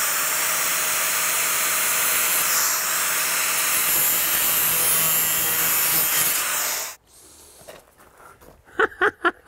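Angle grinder with a thin cutoff disc cutting a length of vinyl J-trim to size, running steadily and stopping abruptly about seven seconds in.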